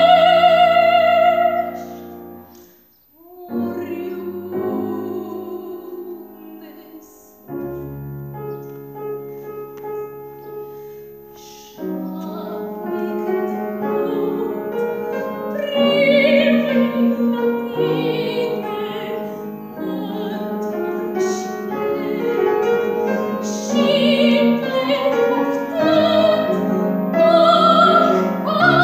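Female classical singer in operatic style with grand piano accompaniment. A held note with vibrato ends about two seconds in, the piano plays alone for about ten seconds, then the voice comes back in with sustained notes over the piano.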